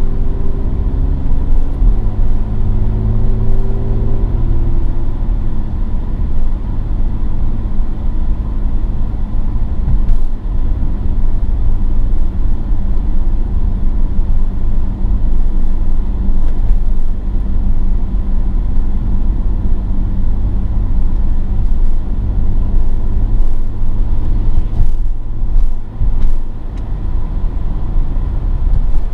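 Mercedes-AMG GLE 43's twin-turbo V6 under way, its engine note climbing, dropping sharply at a gear change about two seconds in, then climbing again before settling into steady driving. Heavy road and wind rumble runs underneath.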